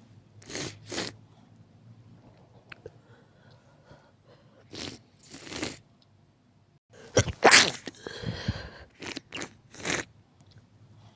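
A person sneezes once, loudly and suddenly, about seven seconds in. A few shorter, fainter sounds come before and after it.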